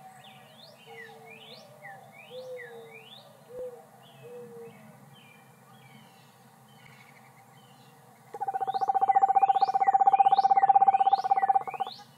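Screech-owl in the nest box giving a loud, rapid trill at one steady pitch for about three and a half seconds, starting about eight seconds in: one of its alert sounds. Songbirds outside chirp with quick rising notes throughout, and a few short low whistles come in the first few seconds.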